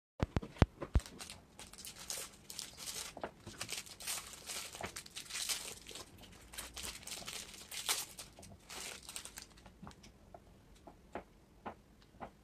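Thin plastic wrappers of individually packed rice cakes crinkling and tearing as they are unwrapped by hand, after a few sharp clicks in the first second. The crinkling stops about three-quarters of the way through, leaving scattered light taps.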